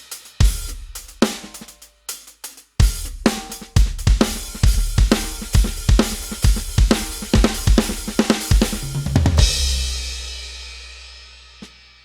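Addictive Drums 2 sampled drum kit played from an Avatar SD301-1 electronic drum kit: a few scattered hits, then a steady beat of bass drum, snare and cymbals from about three seconds in. The beat ends a little after nine seconds on a crash, whose cymbal wash and low boom ring out and fade.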